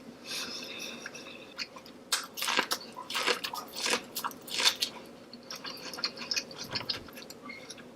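Close-miked chewing and wet, sticky mouth sounds of someone eating a saucy seafood boil, with irregular short smacks and clicks.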